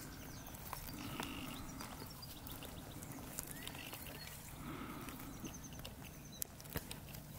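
Sheep grazing close by, tearing and cropping grass in scattered sharp clicks, with a couple of faint bleats from the flock about a second in and again partway through.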